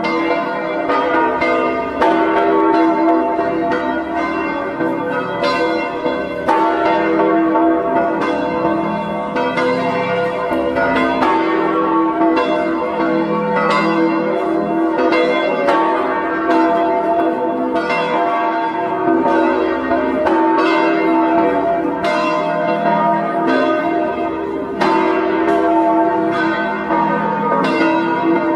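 Church bells pealing, with strokes following one another in quick succession and each bell's tone ringing on over the next.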